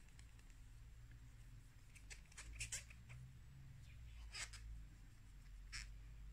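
Faint scratchy rubbing of a cotton wool pad wiping paint off a dotting tool's shaft, in a few short strokes: several about two to three seconds in, one at about four and a half seconds, and one near the end. A low steady hum lies under it.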